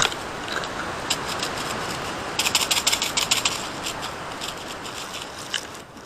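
Airsoft gun fire: a rapid burst of sharp clicking shots lasting about a second, a couple of seconds in, with a few single clicks, over a steady rustling noise.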